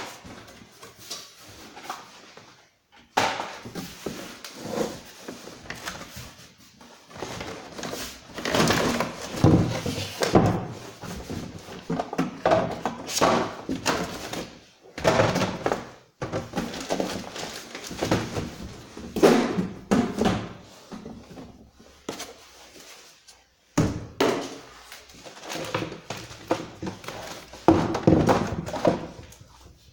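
Handling noise from unboxing a chainsaw: cardboard and packaging rustling in irregular bursts, with several thunks as the box and parts are moved and set down.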